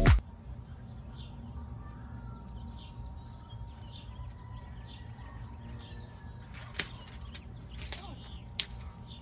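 Outdoor ambience: a steady low wind rumble on the microphone, with faint bird chirps scattered through and a few sharp clicks near the end.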